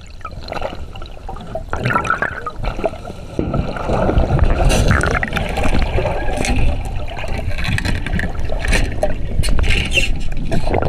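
Rushing, sloshing water with scattered splashes and clatter, growing louder about four seconds in.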